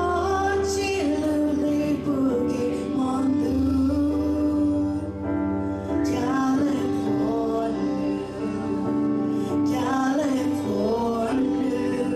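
Worship song: singing voices over a steady instrumental backing.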